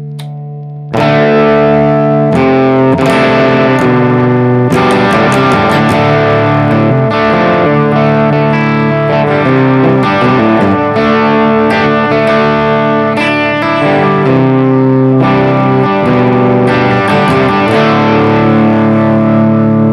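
Electric guitar strumming chords through a TL071 op-amp boost that hard-clips on a single Schottky diode, heard through a cab sim: a super asymmetrical overdrive. A chord rings down, then about a second in loud strummed chords start and carry on through several chord changes.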